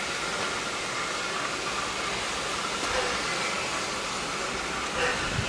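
Steady hiss of steam escaping from a Barton Wright 0-6-0 steam locomotive standing at the head of its train, with a short thump near the end.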